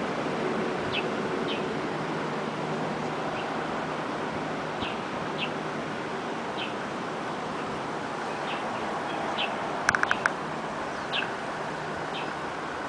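Stream water flowing with a steady rush, with short high bird chirps about once a second over it. About ten seconds in, a quick run of four sharp clicks, the loudest sound.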